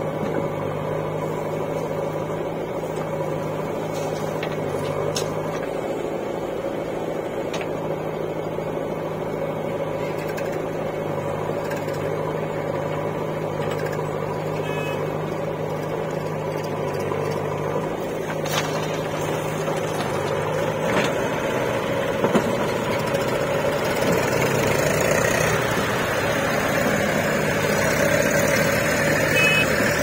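Diesel engines of a JCB 3DX backhoe loader and a farm tractor running steadily while the backhoe loads soil into the tractor's trolley, with a few sharp knocks. In the last third the engine sound grows louder and shifts in pitch as the machines work harder.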